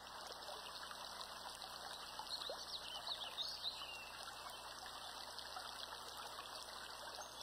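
Mountain stream rushing over rocks and small falls: a steady, faint wash of running water.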